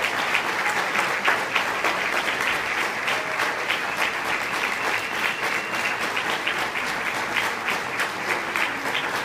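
Audience applauding, a dense steady patter of clapping hands.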